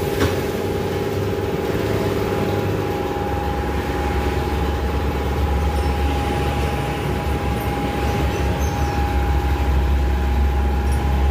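A machine running steadily: a low rumble that grows louder about three seconds in, under a constant high-pitched hum.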